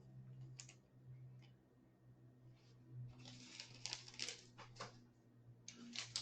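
Faint rustling and clicking of trading cards and packaging being handled, in scattered spells mostly in the second half, over a steady low hum.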